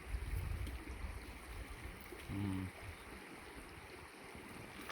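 Stream water running steadily, with wind buffeting the microphone in the first couple of seconds and a brief murmur of a voice about two and a half seconds in.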